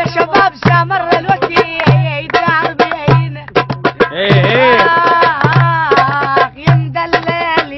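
Middle Eastern music with fast hand-drum percussion and a low bass note about once a second under a wavering melodic lead, which holds one long note about halfway through.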